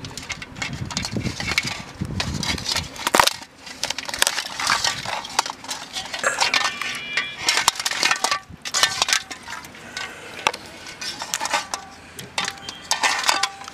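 A large crab being broken apart and cleaned by hand in an aluminium basin: irregular cracking and crunching of shell, with clinks and scrapes of shell against the metal bowl.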